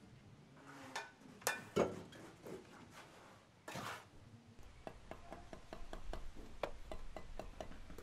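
Bricklaying work sounds: sharp knocks of brick and trowel, the loudest two close together, and a short scrape. Then a run of light, evenly spaced ticks, about four a second, over a low rumble.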